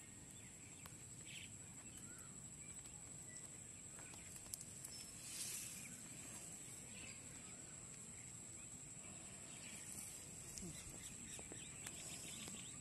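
Quiet outdoor ambience with a faint steady high-pitched whine and a few soft ticks.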